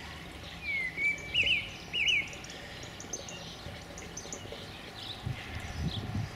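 Wild birds singing: a loud phrase of quick up-and-down whistled notes about a second in, with fainter high chirps throughout. A low rumble comes in near the end.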